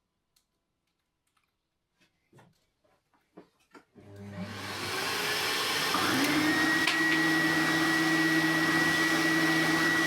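Electric motor of a workshop sanding machine switched on about four seconds in, after a few light clicks, spinning up over about two seconds and then running steadily with a high whine.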